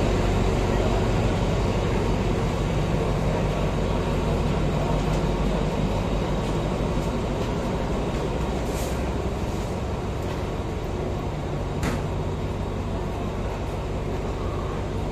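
Steady low rumble of a diesel passenger train idling at the platform, slowly growing fainter, with a sharp metallic click about twelve seconds in.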